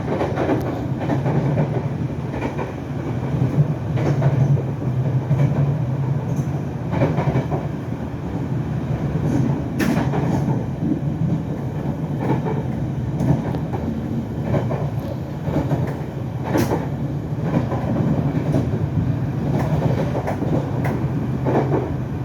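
Puyuma Express tilting electric multiple-unit train running along the track: a steady rumble of wheels on rail, with a sharp click every few seconds at irregular intervals.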